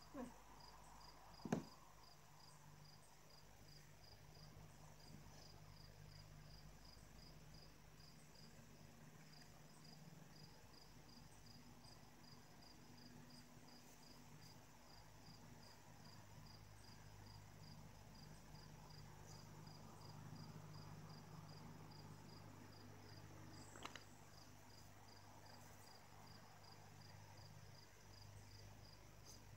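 Faint insect chirping in a steady, even rhythm, with a sharp click about a second and a half in and a smaller one near the end.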